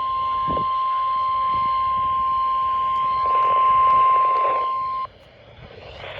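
NOAA Weather Radio 1050 Hz warning alarm tone, sounded for the weekly test: one steady high tone that cuts off suddenly about five seconds in, with radio hiss underneath that swells for a moment just before the cutoff.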